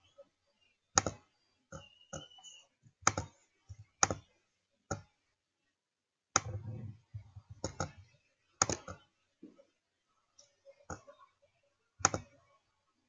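Computer mouse clicking about a dozen times at uneven intervals while options are picked from dropdown menus.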